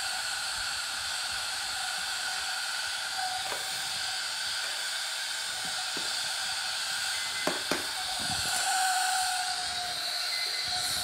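Pressure cooker hissing steadily as it vents steam, with a few light clicks of a utensil.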